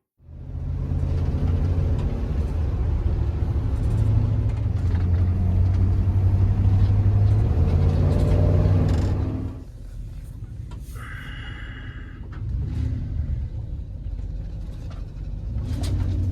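Low, steady rumble of a vehicle on the move. It drops off about two-thirds of the way through, a short high tone sounds about a second later, and then the rumble comes back more quietly.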